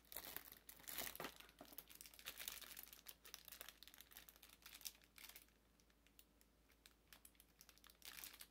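Plastic candy packaging and cellophane gift wrapping crinkling and rustling as they are handled. The crackling is dense for the first five seconds or so, then thins to scattered crinkles.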